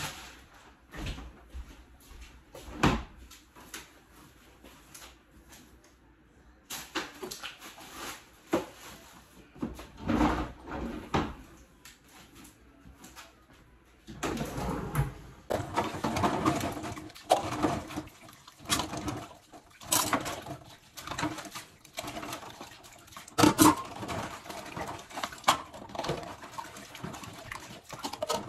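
Kitchen items being handled during cleaning: scattered knocks and clatters of things moved and set down on a counter, growing busier and louder about halfway through.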